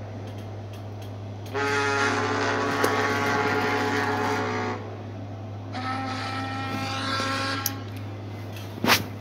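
Ocean liner's whistle sounding two long blasts, each a chord of several tones, the first about three seconds long and the second a little shorter and pitched differently. A sharp click comes near the end.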